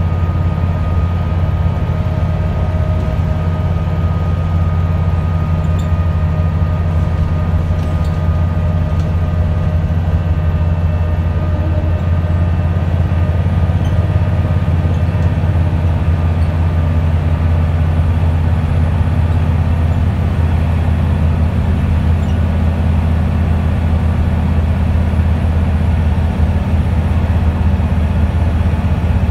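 Interior drone of a Wright Solar-bodied Scania single-deck bus cruising: the engine pulls steadily under load, mixed with road and tyre noise, and a faint steady whine sits above it.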